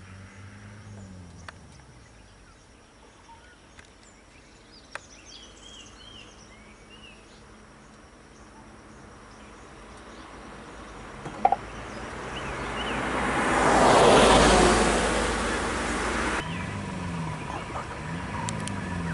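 Quiet roadside ambience with a few short bird chirps, then a vehicle passing close by: its road noise swells to a peak about two thirds of the way in and fades.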